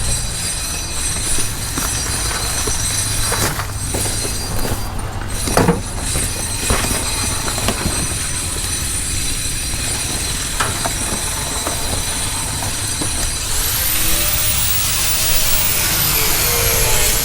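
A power tool running steadily with a grinding, rushing noise and a few knocks in the first half; near the end its pitch sweeps up and down.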